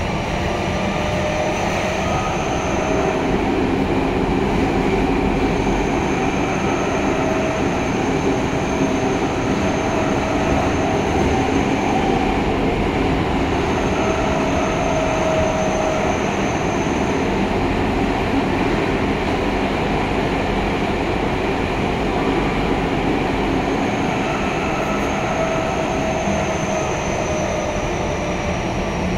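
Tokyo Metro Tozai Line subway train running through a tunnel, heard from inside the car: a steady loud roar of wheels on rail with high whining tones that come and go and fall slightly in pitch near the end.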